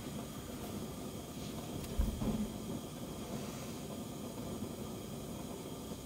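Lit Bunsen burner giving a steady low hiss and rumble while heating a dish to evaporate water. A dull thump comes about two seconds in.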